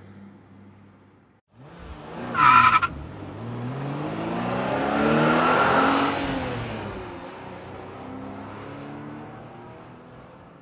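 Car sound effect: a short tire squeal about two and a half seconds in, the loudest moment, then an engine passing by, its pitch rising and then falling as it goes. It fades out near the end.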